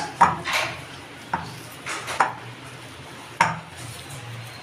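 A glass mixing bowl knocking and clinking against the counter as dough is worked out of it: about six sharp knocks at uneven intervals.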